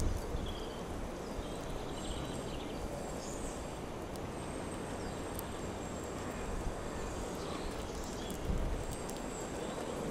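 Outdoor background with a steady low rumble, faint scattered songbird chirps and a few sharp clicks.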